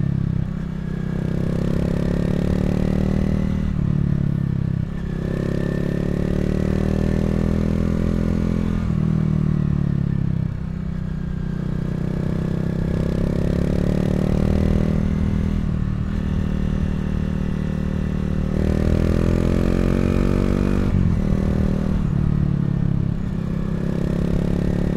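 Honda CRF250L's single-cylinder four-stroke engine under way. The engine note rises as it pulls and drops back sharply about seven times, as the rider rolls off the throttle or shifts gear.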